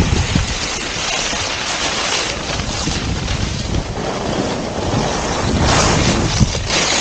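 Wind rushing and buffeting over a microphone moving fast downhill, with the hiss of skis sliding and scraping on packed snow. The noise swells briefly near the end.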